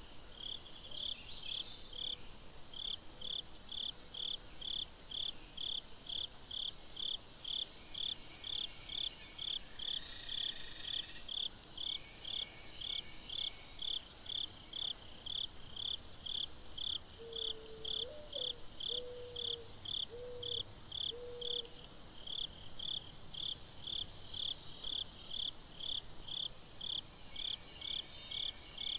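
Steady insect chirping, a short high pulse repeating evenly about twice a second, in the manner of a cricket.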